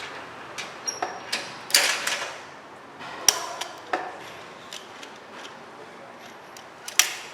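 Small hard toys being handled and knocked together: irregular sharp clicks and clacks, with louder knocks about two seconds in, about three seconds in, and near the end.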